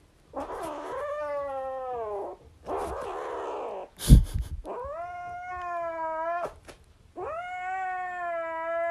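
Grey kitten giving three long, drawn-out yowls while clutching a plush toy, a possessive warning as a hand reaches for the toy. There is a short noisy hiss between the first two yowls and a brief thump about four seconds in.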